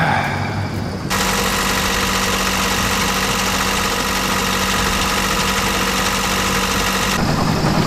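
Sailboat's inboard engine running steadily, heard up close in the open engine compartment from about a second in. The owners say it has a funny vibration and clunky banging with the propeller engaged, cause unknown to them.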